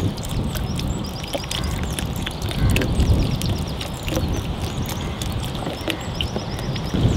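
Outdoor ambience: a steady low rumble with small birds chirping in short, rapid trills several times, and a few light clicks.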